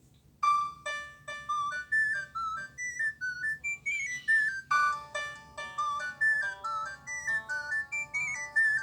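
A Nokia ringtone playing on an LG B470 mobile phone: a quick tune of short notes that starts about half a second in and repeats its phrase from about halfway through with fuller chords underneath.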